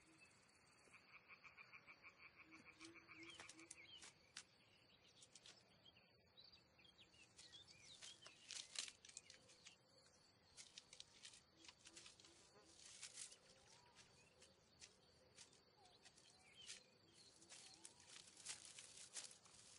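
Faint forest sounds: a short, rapidly repeated call about a second in, then scattered quiet rustles and clicks of movement through the undergrowth.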